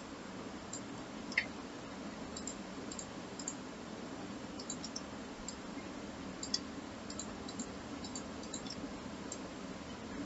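Computer mouse clicking now and then, small irregular clicks, over a faint steady hum of background noise.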